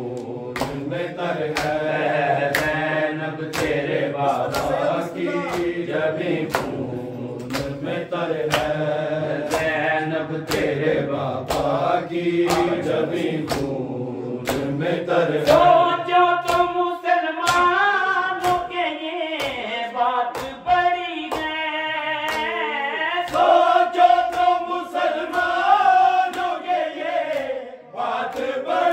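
Men's voices chanting a Punjabi noha (mourning lament) together, kept to a steady beat of open hands slapping bare chests in matam. About halfway in, the singing turns clearer and higher.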